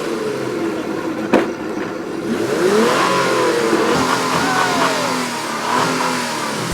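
Several racing vehicles accelerating, their engine notes rising and falling in pitch and overlapping, with one sharp click about a second and a half in.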